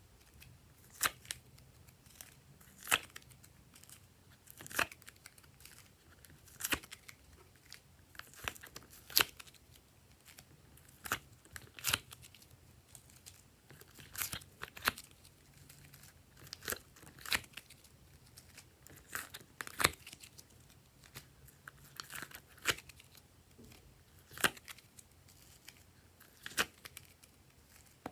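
Glossy slime being worked by hand, giving sharp pops and clicks as air pockets burst, about one every one to two seconds and sometimes in quick pairs.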